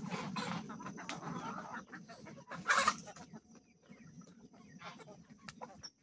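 A flock of chickens clucking around a feed dish as corn is scattered to them. There is a short louder burst about three seconds in, then the clucking thins out, leaving scattered light clicks.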